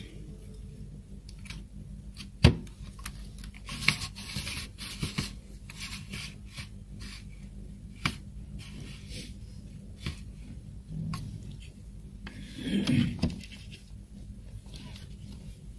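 Fingers rubbing and scraping along a dot matrix printer's metal paper guide and rubber platen, with scattered clicks of parts being handled. One sharp click comes about two and a half seconds in, and a louder handling knock comes near the end.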